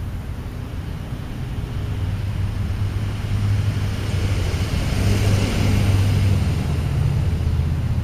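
A motor vehicle passing: a low engine hum with a rising hiss that peaks about five to six seconds in and then eases.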